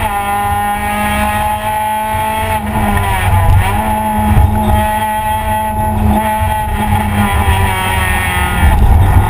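Race car engine at high revs heard from inside its stripped cabin, holding a steady pitch that dips and comes back up a few times as the throttle is eased and reapplied through corners, over constant road and wind rumble.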